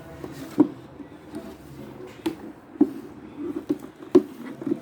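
Handling of the colouring kit's packaging and contents: a handful of sharp taps and clicks, spread unevenly, among quieter rustling.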